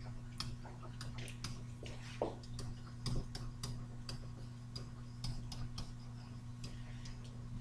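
Stylus tapping and scratching on a tablet screen during handwriting: a string of quick, irregular clicks over a steady low electrical hum.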